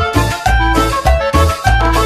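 Upbeat background music with a steady, bouncing bass line under a melody.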